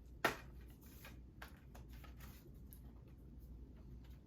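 A metal SteelBook case being handled and opened: one sharp click about a quarter second in, then a few faint taps and rustles.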